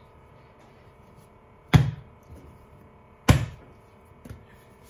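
Two sharp thuds about a second and a half apart as a lump of soft bread dough is slapped down onto a countertop, then a fainter knock near the end.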